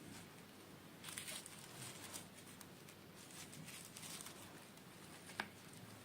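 Faint rustling and handling of small toy packaging, with one sharp click about five seconds in.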